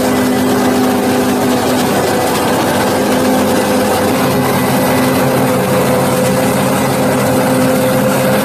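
New Holland FR500 self-propelled forage harvester chopping maize under load: a steady engine drone mixed with the rush of chopped crop blowing from the spout, its engine note shifting slightly about halfway through.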